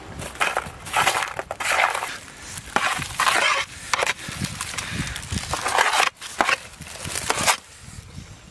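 Charred, dry banana leaves and ash crunching and rustling in irregular bursts as a machete scrapes and hands pull apart the leaf wrapping of chicken roasted under the fire's ashes.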